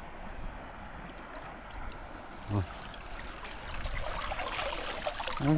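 River water running and trickling, with louder splashing and dripping from about two-thirds of the way through.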